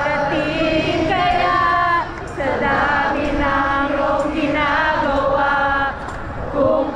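A Filipino song sung live over an outdoor sound system, with many voices of the crowd singing along. The notes are long and held, in phrases with short breaks about two and six seconds in.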